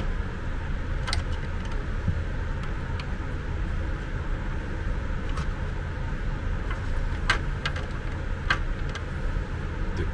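Screwdriver working screws in the plastic case of a MET VIAN portable suction aspirator: scattered small clicks and ticks, the sharpest two about seven and eight and a half seconds in, over a steady low background rumble.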